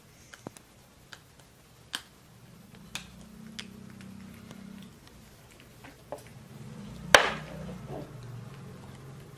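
Scattered sharp clicks and taps of a small cup being handled and bitten by a baby monkey, with one louder crackling crunch about seven seconds in. A low steady hum runs underneath from a couple of seconds in.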